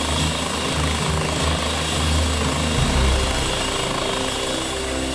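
Eurocopter EC135 trauma helicopter's rotor and turbines running at take-off power as it lifts off the ground. The sound shifts about three seconds in as it rises.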